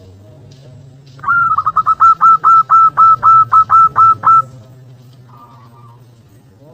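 Zebra dove (perkutut) singing: a fast run of a dozen or more clipped cooing notes, each hooking downward, starting about a second in and lasting about three seconds. A shorter, fainter phrase follows, over a faint low hum.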